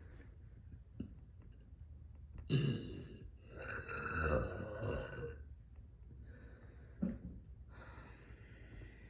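A person burping: a short, sudden burp about two and a half seconds in, then a longer burp lasting about two seconds.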